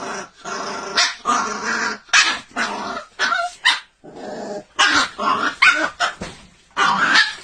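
A dog growling and barking in short, repeated bursts while resisting being bathed.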